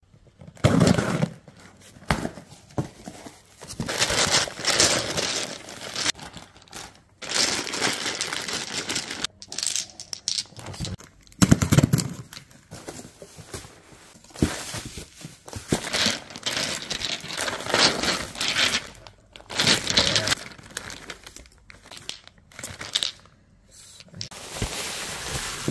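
Unboxing noises in irregular bursts: a cardboard box being opened, packing tape tearing, and bubble wrap and plastic bags of glass marbles crinkling as they are pulled out, with a few dull thuds of the box being handled.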